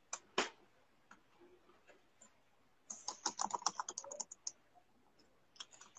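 Typing on a keyboard: two keystrokes at the start, a fast run of keystrokes about three seconds in lasting over a second, then another short run near the end.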